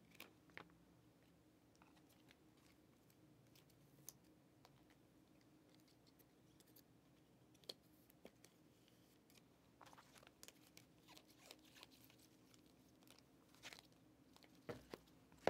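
Near silence, broken by faint scattered clicks and rustles of trading cards and hard plastic card holders being handled and stacked, over a faint steady hum.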